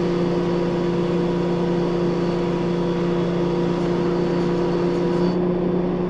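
Nissan Skyline R34 GT-R's built RB32/26 straight-six, single Garrett G42 turbo, running steadily at a constant cruise with road and tyre noise, heard from inside the cabin. The engine note holds one pitch, with no revving or gear changes.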